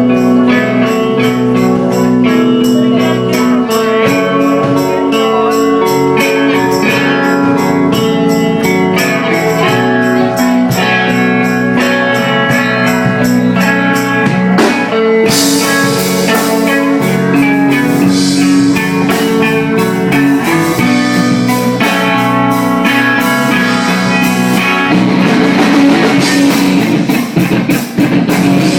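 Live rock band playing a song with electric guitar and drum kit and no vocals, growing fuller with more cymbals about halfway through.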